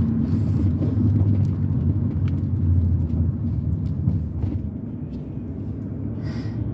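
Car engine and road noise heard from inside the cabin while driving: a steady low drone that gets a little quieter about five seconds in. There is a brief rustle near the end.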